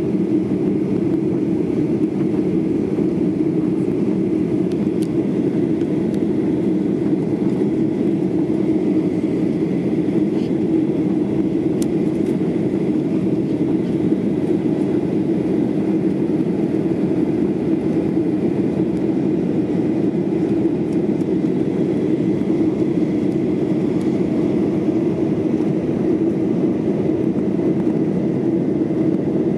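Steady cabin noise of a Boeing 737-800 in its climb after takeoff: the twin CFM56-7B jet engines running and air rushing past the fuselage, heard from a window seat inside the cabin, with a faint steady high whine.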